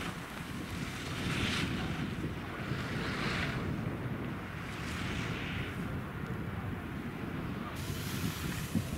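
Wind buffeting the camera microphone: a steady low rumble with a few brief hissing swells.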